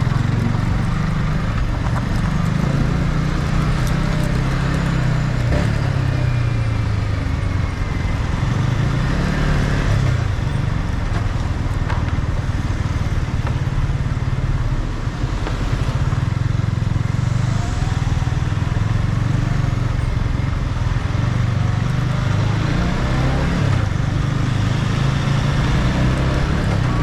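Yamaha MT-15's 155 cc single-cylinder engine running under way through its stock exhaust, its pitch rising and falling with the throttle, over steady wind and road noise.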